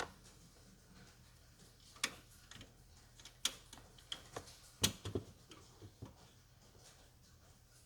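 Scattered sharp clicks and light knocks, about a dozen at uneven spacing, the loudest cluster about five seconds in, over a faint steady hum.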